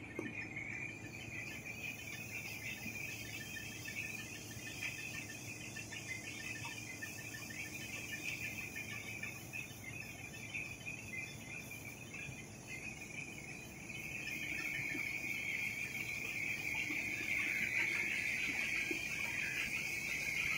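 Rotogravure printing machine running at speed, the printed film web travelling over its rollers: a steady high-pitched whirr with a fast, fine chatter over a low hum. It grows louder about two-thirds of the way through.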